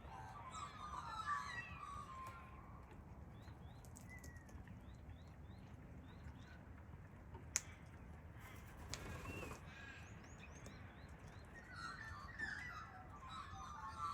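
Wild birds calling: warbling calls near the start and again near the end, with runs of short, high, rising chirps in between, and one sharp click about seven and a half seconds in.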